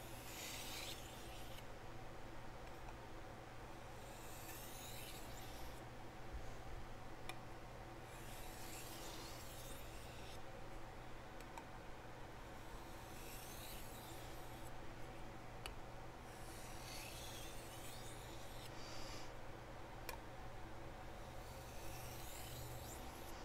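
Faint rasping hiss of a chef knife's steel edge being drawn across a Chosera sharpening stone, in short runs of strokes that recur about every four seconds.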